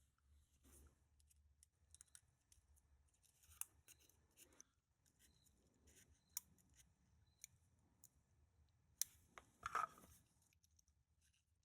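Near silence broken by sparse, faint small metal clicks and taps from a pin-tumbler lock being taken apart, with a short cluster of louder clicks about three-quarters of the way through.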